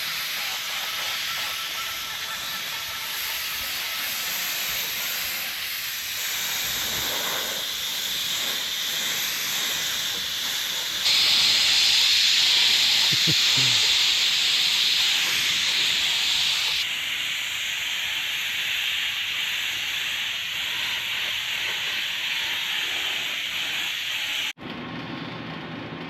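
Spray painting: a steady hiss of paint spray, louder for several seconds in the middle. It cuts off abruptly near the end, giving way to quieter room sound.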